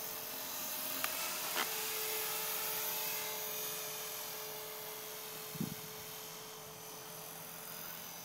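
Electric radio-controlled model helicopter in flight, its motor and rotor giving a steady, even whine that slowly fades in the second half. A short knock about five and a half seconds in.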